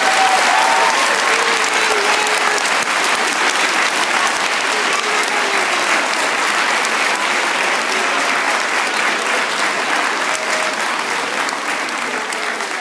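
An assembly audience of schoolchildren applauding steadily, fading away near the end.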